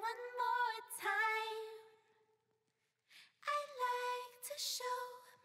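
Background song with a woman singing long held notes. The voice drops out for about a second and a half near the middle, then the singing resumes.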